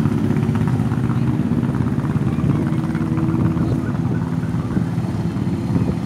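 Several motorcycle engines running steadily close by, a low engine drone with a held pitch; a group of rental chopper-style bikes.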